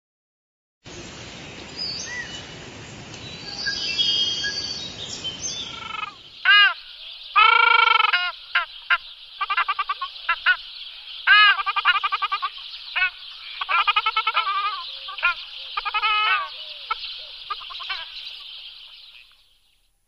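Ruddy shelducks calling: a series of goose-like honking calls, some single and some in quick runs of short notes. The calls begin about six seconds in, after a stretch of rushing noise.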